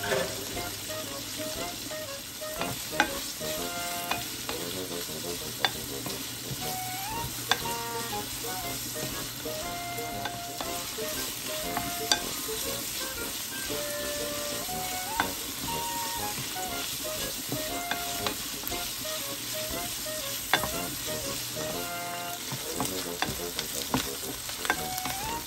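Sliced pork and onions sizzling as they stir-fry in a nonstick frying pan, the pork browning. A wooden spatula stirs them, with a sharp tap against the pan every few seconds.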